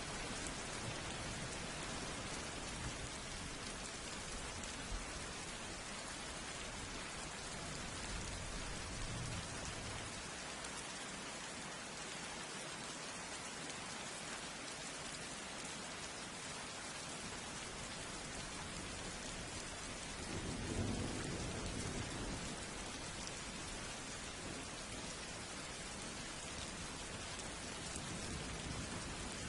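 Steady heavy rain falling, with low thunder rumbling in the distance a few times, loudest about two-thirds of the way through.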